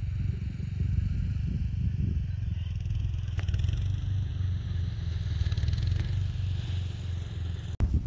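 Wind buffeting the phone's microphone: a steady, gusting low rumble. It drops out briefly near the end.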